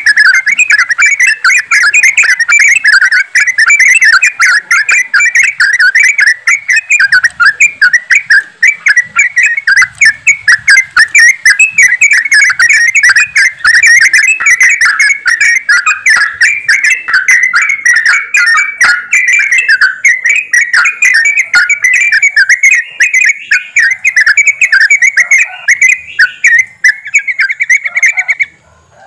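A flock of yellow-vented bulbuls (trucukan) calling together: many short, bubbly calls overlapping in a dense, unbroken chatter. It breaks off briefly right at the end.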